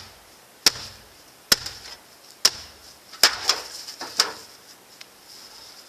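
A golf iron smashing the sheet-metal casing of a microwave oven: about six sharp metal strikes, roughly one a second, each with a short ring.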